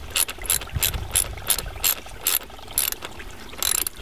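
Ratchet wrench clicking in short bursts, about two or three a second, with a longer burst near the end, as it tightens a hose clamp on a rubber pipe connector.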